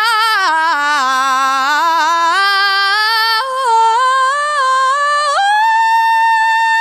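A single high singing voice, unaccompanied, sings a long run of notes stepping up and down in pitch. About five seconds in it jumps to a high held note, which cuts off near the end.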